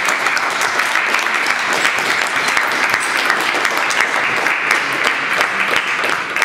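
Spectators applauding a won point in a table tennis match, a steady clatter of many hands clapping.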